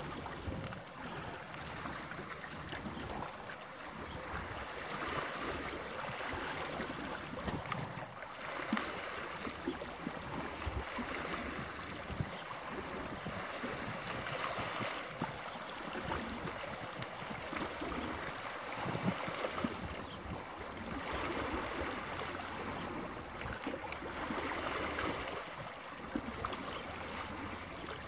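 Outdoor wind and water noise: a steady hiss of wind and small waves that swells and eases every few seconds.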